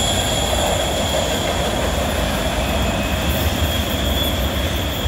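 Freight cars' wheels squealing steadily as they round a curve, several high thin tones held over the rumble of steel wheels on the rails, slowly getting quieter.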